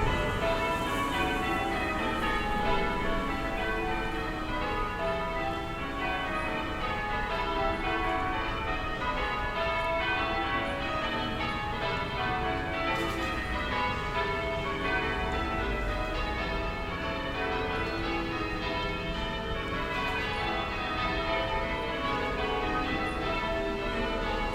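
Distant church bells being rung continuously, many strikes overlapping in an unbroken peal, over a low rumble of town ambience.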